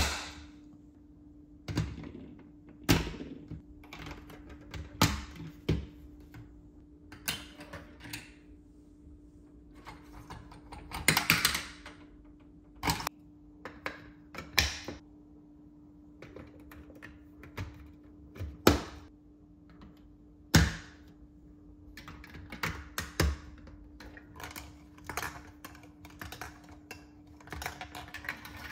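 Plastic VTech Marble Rush track pieces being set down and pressed onto the baseplate: irregular hard plastic clicks, taps and knocks, some sharp and loud, with pauses between, over a faint steady hum.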